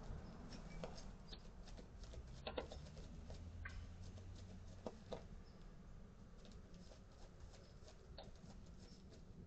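Faint outdoor background noise with a low hum and scattered light clicks and ticks.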